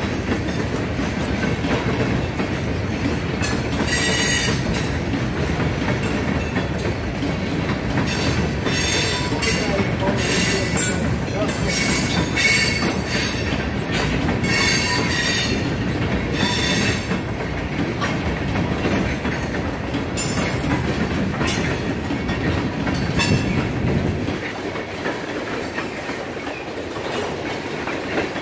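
Grand Elk Railroad freight train's hopper cars rolling past, with a steady rumble and clatter of steel wheels on the rails. Short high-pitched wheel squeals break in several times during the first two-thirds. The low rumble eases near the end.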